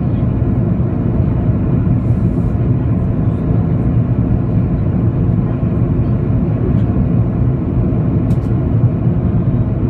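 Steady low roar inside the cabin of an Airbus A330-200 airliner descending on approach to land: its wing-mounted engines and the airflow heard from a window seat over the wing.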